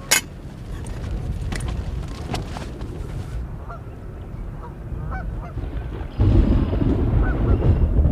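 Geese honking faintly at intervals, with a sharp click near the start. A strong gust of wind hits the microphone about six seconds in.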